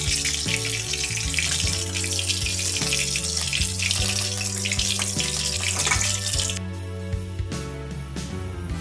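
Rohu fish steaks frying in hot mustard oil in a wok, a steady sizzle that cuts off suddenly about six and a half seconds in, with background music underneath.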